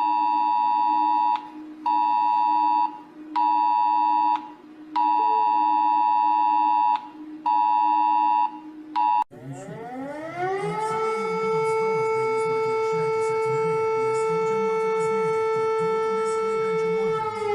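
An emergency alert attention tone: a high two-note electronic tone sounding in on-off pulses of one to two seconds. After an abrupt cut, a siren winds up over about a second, holds one steady pitch, and begins to wind down near the end.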